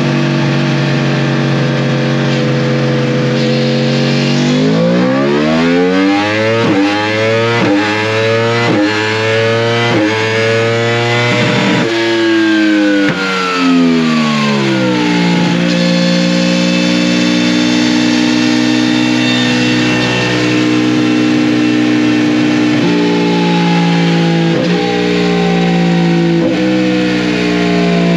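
2023 Yamaha R1 crossplane inline-four engine running under load on a chassis dynamometer for ECU mapping. It holds a steady speed, then revs up in a series of short rising steps for several seconds, drops back smoothly about halfway through, and runs steady again with a few slight dips.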